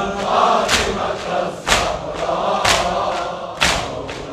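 A group of male mourners chanting a nohay refrain together, with a sharp slap of chest-beating (latmiya) landing about once a second, four times.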